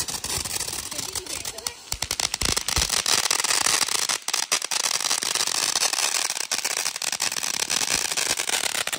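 A lit crackling firework burning: a steady hiss packed with rapid small pops, growing louder a few seconds in.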